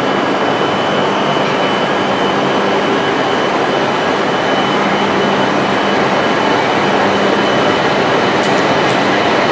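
E5 series Shinkansen train moving slowly alongside the platform: a steady rushing running noise with a low hum and a thin high tone, growing a little louder toward the end.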